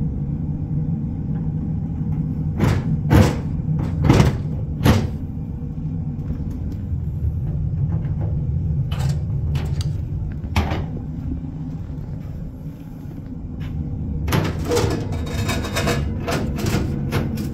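Kerosene oil boiler's burner running with a steady low rumble and hum. Several sharp knocks and rattles from handling its metal casing, with a busier clatter near the end.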